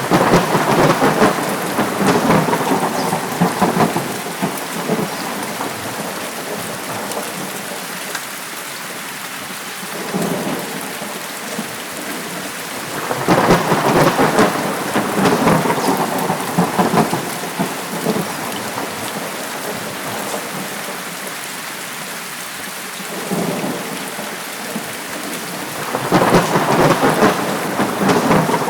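Thunderstorm: steady rain with rolling thunder. Three long rumbles of thunder, each lasting a few seconds, come at the start, about halfway through and near the end, with fainter swells between them.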